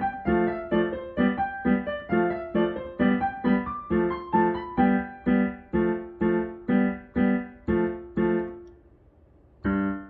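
Piano played with both hands: a steady run of repeated low chords, about two a second, under a simple melody, the closing bars of a children's piece. The playing breaks off, and after a short pause one final chord is struck near the end.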